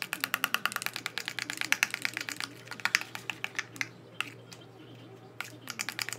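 Metal spoon clicking and scraping rapidly against a plastic bowl while a thick glue-based slime mixture is stirred. The clicks come fast at first, thin out after about three seconds, and stop briefly before picking up again near the end.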